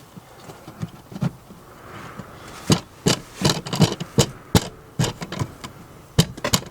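Quiet handling, then from about two and a half seconds in a string of sharp, irregular knocks, a few a second: the porthole being knocked and worked into its tight-fitting cut-out in the boat's wall.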